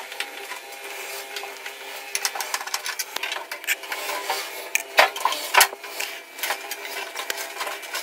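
Screws being backed out of a microwave oven's sheet-metal cabinet with a long-shafted screwdriver: a steady whirring hum under a run of sharp metallic clicks and taps, the loudest about five seconds in.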